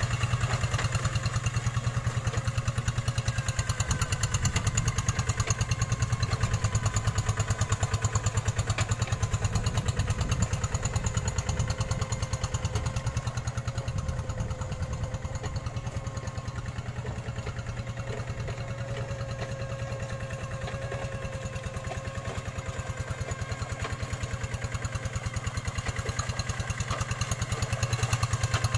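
Two-wheel hand tractor's single-cylinder diesel engine running steadily with a fast, even beat as it pulls through paddy mud. It grows a little quieter midway as the tractor moves off across the plot, then louder again near the end as it comes back.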